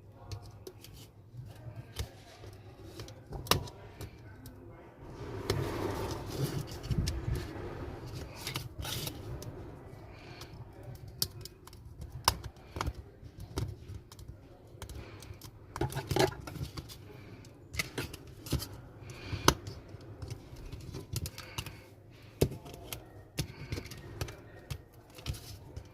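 Scattered small clicks and taps of tools and phone parts being handled on a workbench, with a stretch of rustling about five to nine seconds in.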